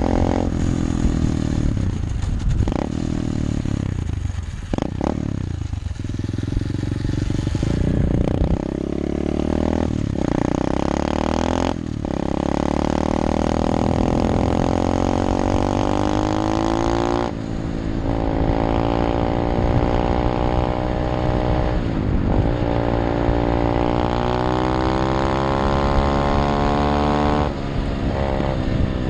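SSR 125 pit bike's single-cylinder four-stroke engine under way, revving up with its pitch climbing, then dropping back several times as the throttle is eased and gears are changed.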